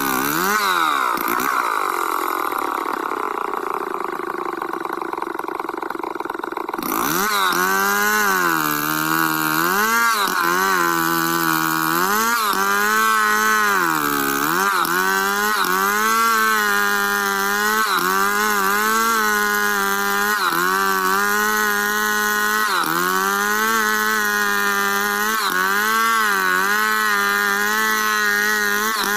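Stihl chainsaw ripping lengthwise along a squared log in freehand milling, the engine under load. Its pitch sags slowly over the first few seconds, then rises and falls every second or two as the chain bites into and frees in the cut.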